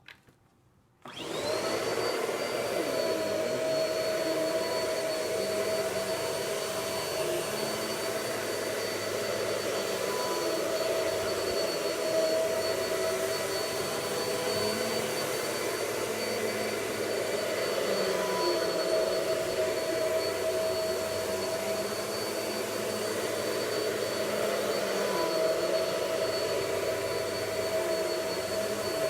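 Vacuum cleaner switched on about a second in, its motor spinning up with a brief rising whine and then running steadily.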